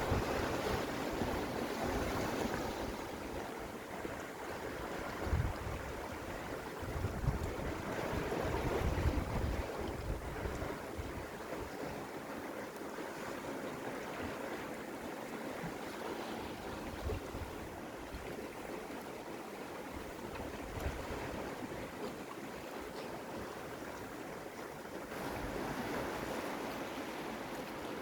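Sea waves washing against a rocky shore, a steady surf, with wind buffeting the microphone in low gusts during the first ten seconds. The surf swells louder a few seconds before the end.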